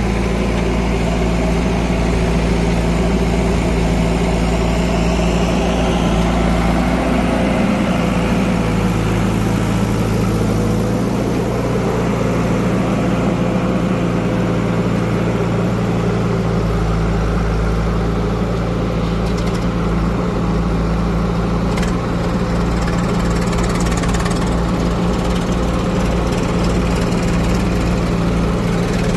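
Diesel engine of heavy machinery running steadily, its low note shifting in pitch a few times as the load or throttle changes.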